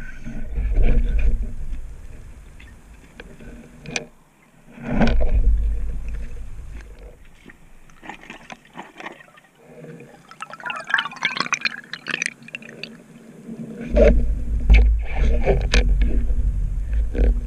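Underwater water noise from a freediver moving, heard through a camera housing: deep rushing surges, a few sharp clicks, and a stretch of bubbly gurgling in the middle.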